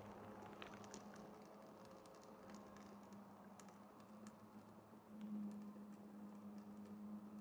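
Faint crackling of a small wood fire burning inside a beer-keg wood stove, sparse light ticks and pops. A low steady hum sits underneath and grows louder about five seconds in.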